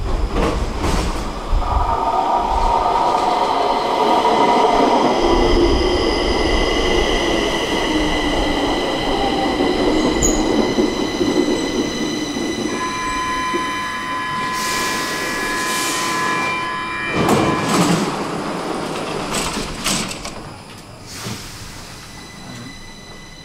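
Stockholm metro train arriving: wheel and rolling noise with a high whine as it slows to a stop. About halfway through, a steady tone sounds for a few seconds. A few loud knocks follow as the doors open, and the sound turns quieter and muffled inside the car near the end.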